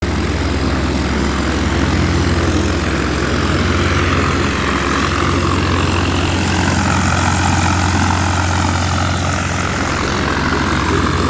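Light aircraft's piston engine and propeller running steadily, a constant low drone with a higher whine that grows stronger in the second half.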